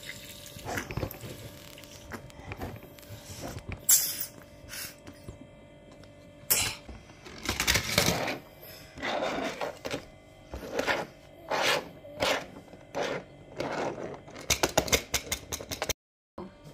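Plastic toy car wash playset being handled: scattered clicks, knocks and scrapes as its plastic parts and a toy car are moved, with a fast run of rattling clicks near the end.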